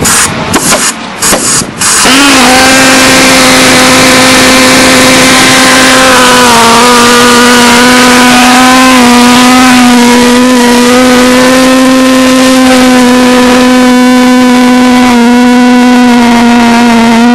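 Model pulsejet engine on an RC boat popping in short uneven bursts, then catching about two seconds in and running flat out with a loud, steady drone at one pitch, which sags slightly a few seconds later.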